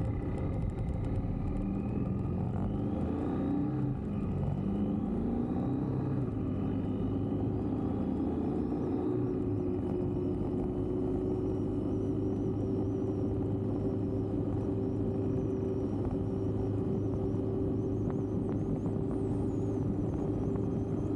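BMW R1250GS boxer-twin motorcycle engine heard from the bike while riding, with road noise. The engine pitch rises over the first several seconds as the bike picks up speed, then holds steady at cruising speed.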